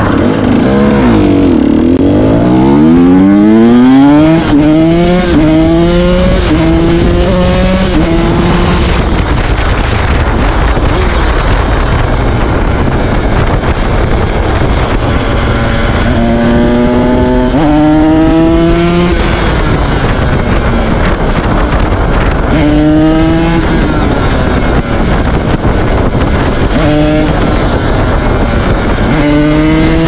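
2017 KTM 125 SX supermoto's single-cylinder two-stroke engine revving hard under acceleration, its pitch climbing in stepped sweeps through the gears over the first several seconds. Further bursts of rising revs come in the second half and again near the end.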